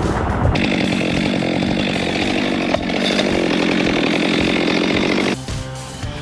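Chainsaw running steadily at high revs for about five seconds, then cutting off abruptly. Quieter background music is left near the end.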